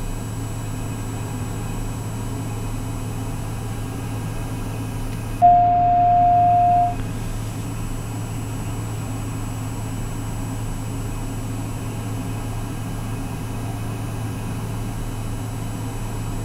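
Steady drone of the Socata TBM 910's Pratt & Whitney PT6A-66D turboprop running at low power on the ground. About five seconds in, a loud steady electronic beep sounds for about a second and a half.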